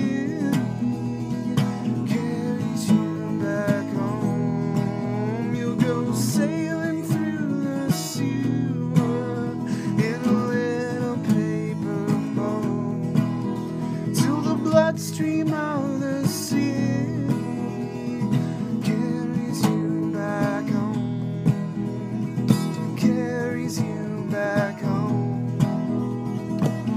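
Acoustic guitar being strummed in a steady song accompaniment, with a man's singing voice over it at times.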